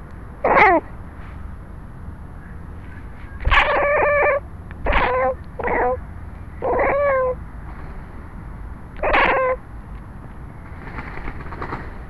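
Domestic cat meowing six times, short pitched calls that fall in pitch at the end, the longest lasting under a second.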